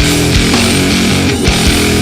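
Heavy rock music with distorted electric guitar and a driving drum beat.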